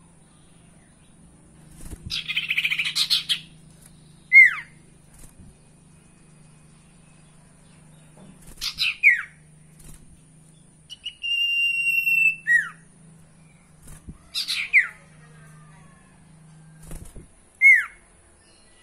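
Iora song: buzzy chattering bursts, each ending in a sharp downward-sliding whistle, repeated four or five times, with one clear whistle held for about a second and a half in the middle.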